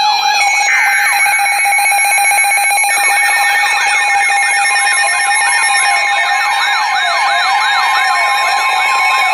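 Several electronic alarm sirens sounding at once, each in rapid up-and-down yelping sweeps over steady alert tones. More sirens join about a second in and again about three seconds in, thickening into a dense warbling clamour.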